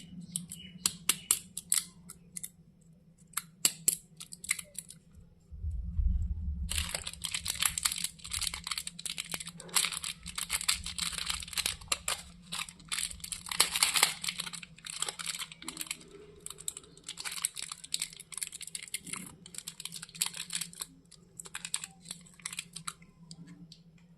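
Chocolate bar wrappers being torn open and crinkled: scattered crackles at first, then a long stretch of dense crinkling from about seven seconds in. A brief low rumble comes just before the dense crinkling.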